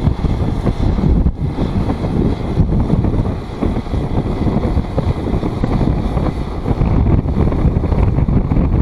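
Kubota M6040SU diesel tractor running steadily as it pulls a round straw baler, with heavy wind buffeting on the microphone.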